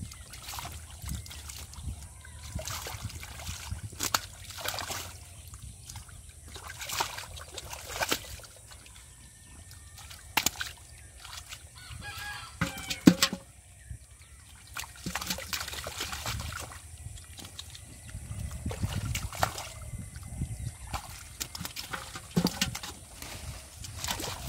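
Hands splashing and sloshing in shallow muddy water and mud while groping for catfish, with irregular sharp splashes and smacks; the loudest comes about halfway through.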